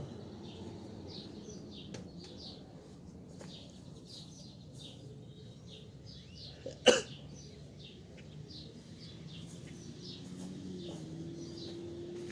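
Small birds chirping over and over in the background, with one short, loud burst about seven seconds in.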